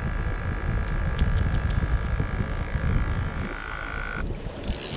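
Wind buffeting the microphone in a steady low rumble, with a thin steady whine underneath that cuts off about four seconds in, then a short hiss.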